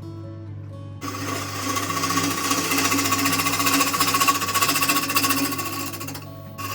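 A turning gouge cutting into a spinning oak bowl blank on a wood lathe makes a loud, rapid rattling chatter. It starts about a second in and breaks off briefly near the end, over background guitar music.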